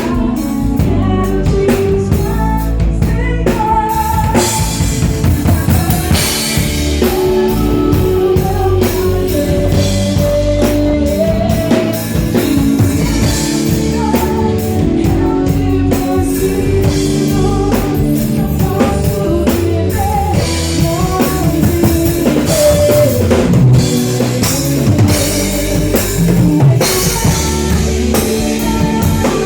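Live gospel band playing a song: a full drum kit, with bass drum and rimshots, keeps a steady beat under pitched instruments.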